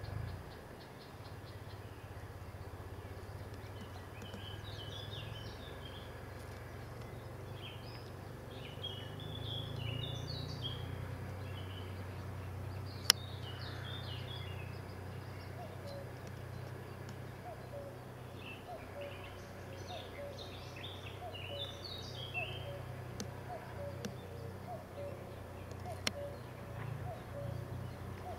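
Wild songbirds singing in short high chirping phrases over a low steady hum. There is one sharp click about halfway through. In the second half a lower note repeats about once a second.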